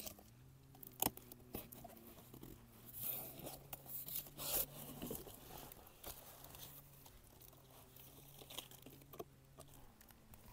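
A parcel being opened by hand: packaging tearing and crinkling amid scattered clicks and rustles, loudest in a couple of bursts of tearing about three to five seconds in.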